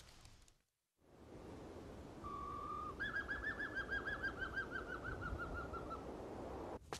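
Night bird call over faint night ambience: one short steady whistle, then a quick warbling trill lasting about three seconds and falling slightly in pitch.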